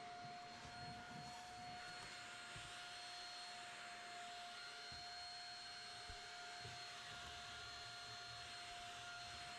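Faint steady hiss with a thin, constant high whine and a few soft low knocks: quiet room tone.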